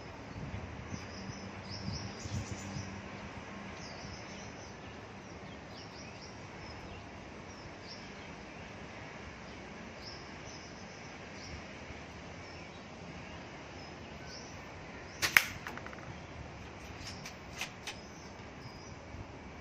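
A single sharp shot from a spring-powered bolt-action airsoft sniper rifle late on, followed a couple of seconds later by a few light clicks. Birds chirp faintly throughout.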